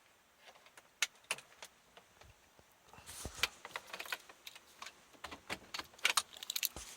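Car keys jangling on the ring and scattered clicks as the ignition key and controls of a 2006 Honda Odyssey are worked; no starter cranking or engine running is heard, as the van won't start because of an internally separated battery terminal.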